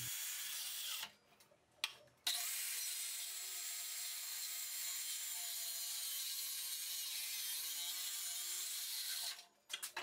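Skilsaw circular saw cutting through an oak board, a steady sound that drops out for about a second near the start and stops abruptly near the end.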